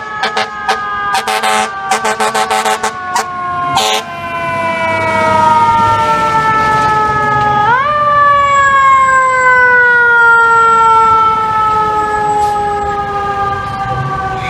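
FDNY fire engine's siren wailing as the truck passes, its pitch sliding slowly down, climbing sharply again about eight seconds in, then sliding slowly down once more. Over the first four seconds a rapid string of short, sharp blasts cuts through the wail.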